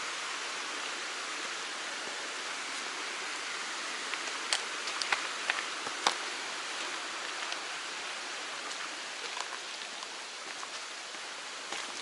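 Mountain stream rushing steadily, swollen after rain. A few sharp clicks stand out about four to six seconds in.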